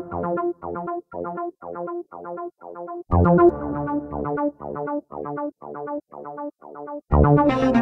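Background music: short, clipped chords in a steady beat, about three a second, with a heavier chord and bass landing about every four seconds. The music grows fuller near the end.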